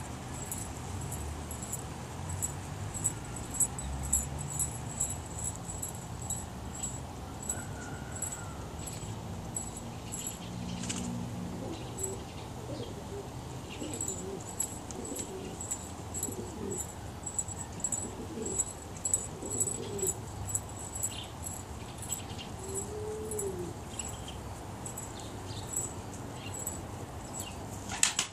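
Pouter pigeons giving low coos, drawn out in the first half and short and arching in the second, over a run of quick, faint ticking.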